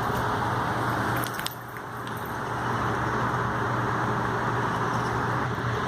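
Steady mechanical hum with a rushing noise, dipping briefly about a second and a half in, with a few faint clicks.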